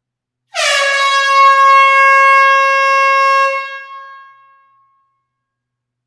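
Air horn sounding one long blast of about three seconds, a single held note with many overtones that dips slightly in pitch at its onset. It then dies away over a second or so, echoing in a closed hall.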